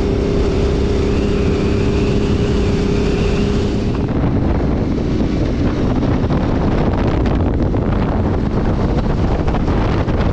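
Adventure motorcycle cruising at a steady speed on a sealed highway, its engine holding one even drone. About four seconds in the sound changes abruptly to heavy wind buffeting on the microphone over the engine and road noise.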